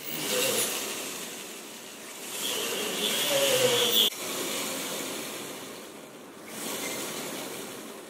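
Jeweler's rotary handpiece spinning a green carving-wax rod while a flat graver shaves it, a hissing scrape that comes in a few stretches. It is loudest from about two and a half to four seconds in, with a faint whine, and breaks off abruptly.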